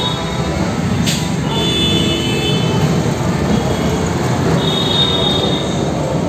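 Steady low rumble of busy street traffic through an open entrance. Three times it is crossed by a short high-pitched beeping tone lasting about a second, and there is a brief click about a second in.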